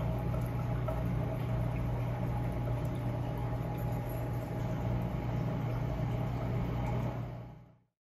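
Steady low hum of running machinery in an aquarium room, with a faint higher tone and a light hiss over it; it fades out near the end.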